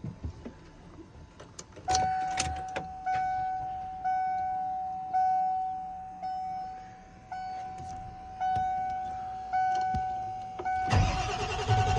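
A truck's warning chime dinging about once a second, each ding fading out, after a few light clicks. About a second before the end, the 1997 Power Stroke 7.3 L V8 turbo-diesel begins to crank and catch, loud and rumbling, with the chime still going.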